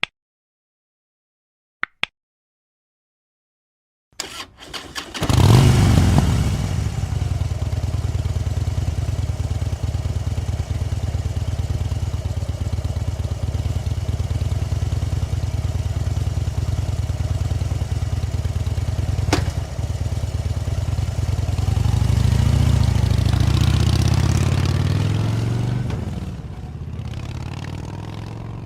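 Motorcycle engine: two sharp clicks, then about four seconds in it cranks and catches with a burst of revs and settles into a steady idle. Near the end it is revved up briefly, then the sound drops away.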